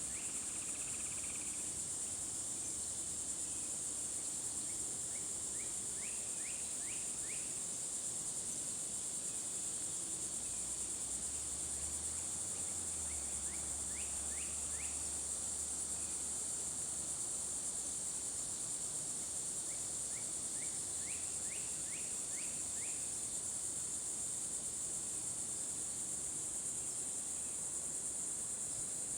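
A steady, high-pitched chorus of insects trilling without a break. Three times, a short run of quick falling notes sounds over it.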